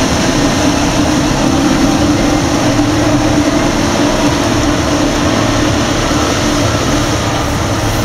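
Claas Lexion combine harvester with a corn header running steadily while harvesting maize: a loud, constant drone of the engine and the threshing and header machinery.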